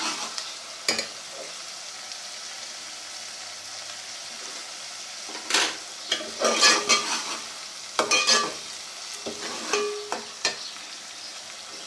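Ginger-garlic paste and browned onions sizzling steadily in hot oil in a metal pot, the raw paste being fried off. A metal spoon scrapes and clinks against the pot in bouts of stirring about halfway through and again near the end.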